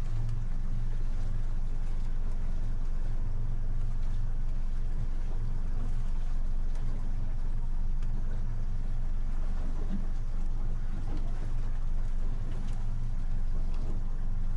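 Motorboat engine idling steadily with a low, even hum, warming up.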